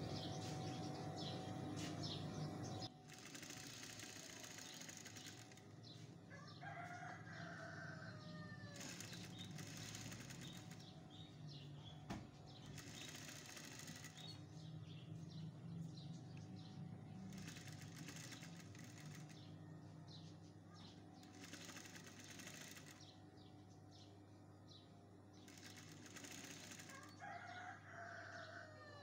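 An electric sewing machine runs with a steady hum, then stops about three seconds in. After that, soft hissing rushes of noise come back every four seconds or so, and a rooster crows twice, once near the start and once near the end.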